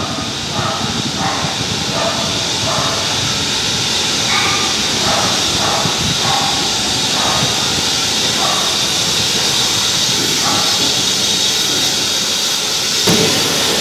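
BR Standard Class 4 steam locomotive No. 76079 hissing steam steadily as it rolls slowly in.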